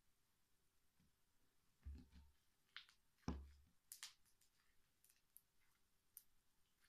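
Slime being handled: a few soft, scattered clicks and knocks, the loudest a little over three seconds in.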